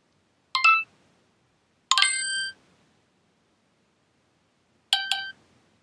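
Google Glass interface chimes: three short electronic chimes, each a cluster of high bell-like tones. The first comes about half a second in, a longer one about two seconds in, and a third near the end, as the headset takes the spoken destination and loads the route.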